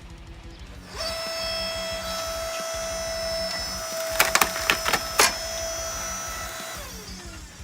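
Chainsaw running at full throttle through a log for about six seconds, with several sharp cracks of wood partway through. The engine note drops away as the throttle is released near the end.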